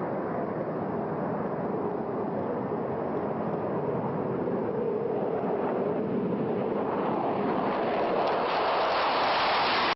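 Jet aircraft engine noise, a steady rush that grows louder and higher over the last few seconds, then cuts off abruptly.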